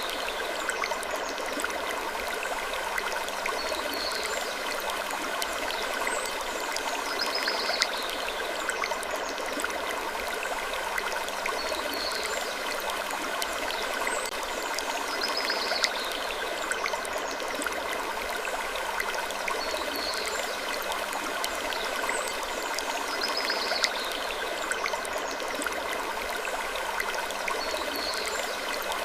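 Looped creaking-wood sleep ambience over a steady, dense hiss, with a soft creak recurring about every four seconds.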